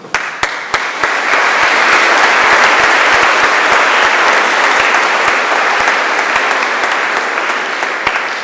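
An audience of students applauding: a few scattered claps swell within about a second into full, steady applause that begins to die down near the end.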